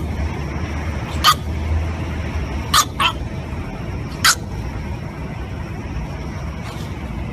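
French bulldog puppy giving four short, high yaps, two of them in quick succession, over steady background noise.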